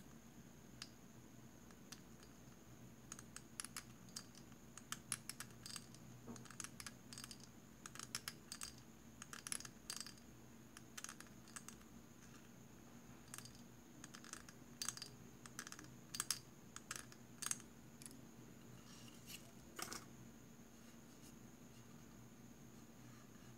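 Faint, irregular scratches and clicks of a needle scriber in a pin vise working into the plastic of a scale-model fuel tank, bunched through the middle of the stretch, over a steady low hum.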